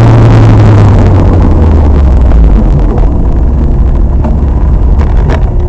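Loud car engine noise: a low steady engine note that drops in pitch over the first couple of seconds and settles into a rougher rumble, with a few short sharp clicks near the end.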